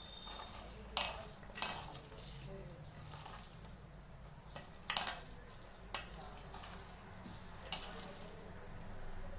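Stainless steel bowl clinking sharply about five times, with a brief ring after each, as chopped onions and cabbage are mixed in it by hand.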